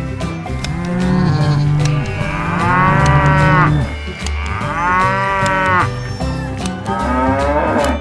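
Cows mooing: three long, drawn-out moos over background music.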